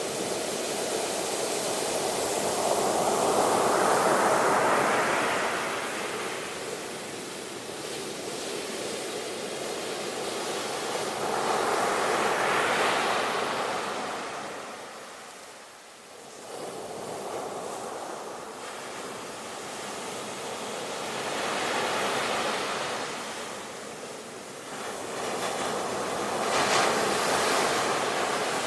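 Sea waves breaking on a shore, the surf swelling and falling back in slow surges every several seconds.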